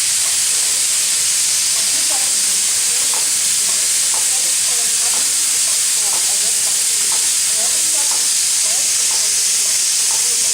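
Steam locomotive L-4600, a Soviet L-class engine, blowing off steam in a loud, steady hiss.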